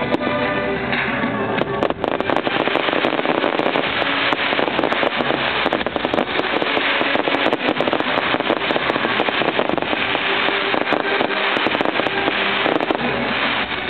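Fireworks display: many shells bursting close together in a dense run of crackles and pops, starting about a second and a half in, over loud show music.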